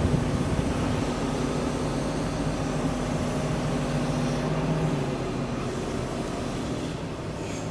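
Kato mobile crane's diesel engine running steadily with a low hum that eases a little after about five seconds.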